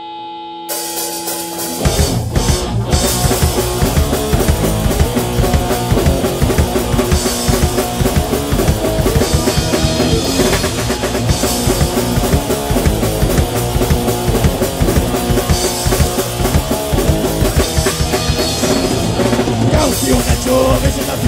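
Rock band playing with drum kit, electric guitars and bass guitar. It opens on held notes with a cymbal wash coming in, and the full band with drums starts about two seconds in.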